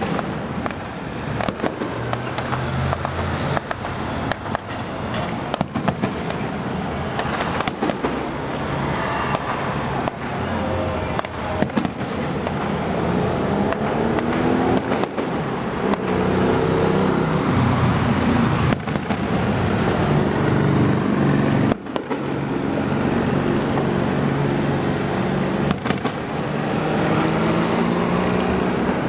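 Distant fireworks display: shells bursting with many sharp bangs at irregular intervals over a continuous crackle. A low hum with a steady pitch runs underneath and grows louder in the second half.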